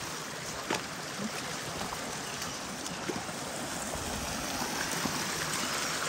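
Shallow stream at low water running steadily over rocks, with a faint click about a second in.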